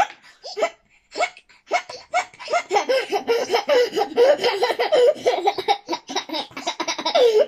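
A baby laughing: short separate bursts at first, then a long run of belly laughs from about two seconds in, mixed with hiccup sounds from a cartoon.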